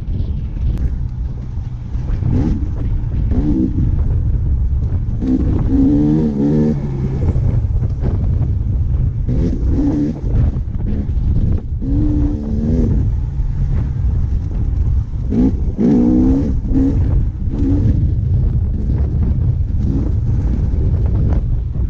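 Dirt bike engine running on a trail ride, its note climbing and dropping several times as the throttle is worked, under heavy wind rumble on the microphone.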